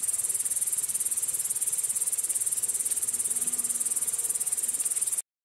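Night insects chirring: a steady, high-pitched trill with a rapid even pulse that cuts off suddenly near the end.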